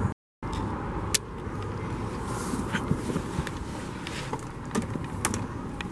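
Light clicks and rustling of a person climbing into a car's back seat through the open rear door, over a steady background hiss. The sound cuts out for a moment right at the start.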